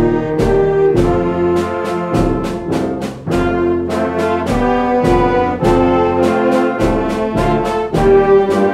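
Youth concert band playing: brass and woodwinds hold sustained chords, punctuated by sharp accented hits about twice a second.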